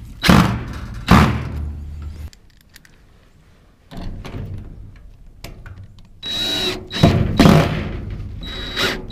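Cordless drill running in several bursts against a wooden frame, with a quieter pause about two seconds in, a high whine in the later runs and a few sharp knocks.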